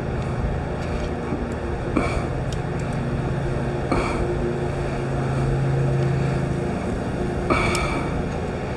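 A steady low motor drone throughout, with a few light sharp clicks of metal on metal as the caliper depth rod is worked inside a steel impact socket.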